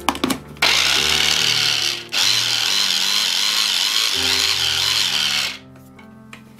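Electric mini chopper's motor running in two pulses, a short one of just over a second and then a longer one of about three seconds, blending fish paste.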